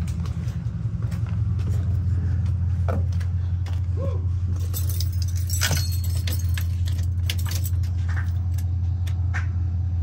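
A steady low mechanical hum, with scattered light metallic clicks and jingles over it.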